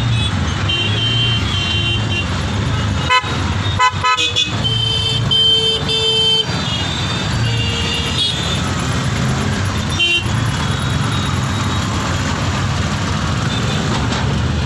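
Auto-rickshaw engine running in city traffic, heard from inside the cab, with other vehicles' horns honking: a short honk about a second in and a longer, louder one from about four and a half to six and a half seconds in. A few sharp knocks between about three and four and a half seconds in, as the cab jolts.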